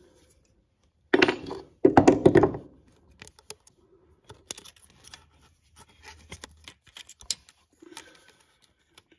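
Small metal clicks and scrapes of a feeler gauge being slid into the valve clearance gap on a Honda SL100's tappet adjuster, while the 0.05 mm clearance is being set. About a second in there are two louder, noisier handling sounds.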